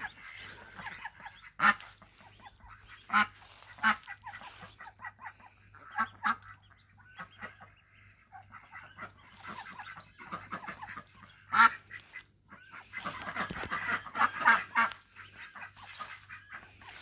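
Domestic puddle ducks quacking: loud single calls every second or two, with a denser run of quacking about thirteen seconds in.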